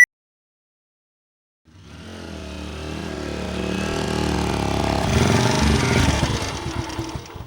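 Motorcycle engine running, rising out of silence and growing steadily louder for about four seconds, then falling away and fading out near the end.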